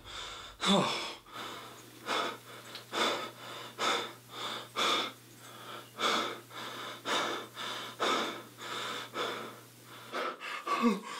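A man breathing fast and hard, about two breaths a second, with a few voiced gasps that fall in pitch near the end. A low steady hum sits underneath most of it.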